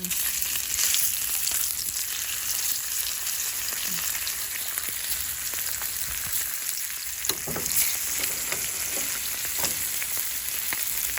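Dried fish (pinakas) frying in hot oil in a pan: a steady sizzle with scattered small pops.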